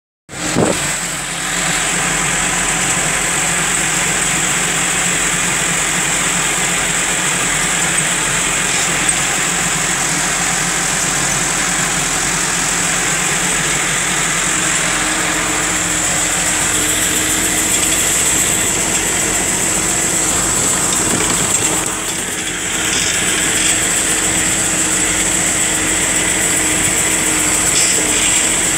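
Massey Ferguson 3065 tractor's diesel engine running steadily as the tractor drives through the field, heard from the driver's seat, with a brief dip in level about three-quarters of the way through.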